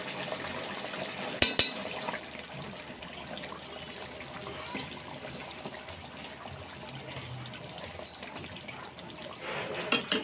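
Fish curry simmering and bubbling in a metal pan, a steady wet hiss. About a second and a half in there are two sharp metallic clicks, and near the end there are louder handling sounds.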